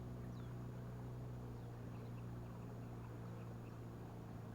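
Steady low hum of a boat motor running, with faint short birdcalls recurring.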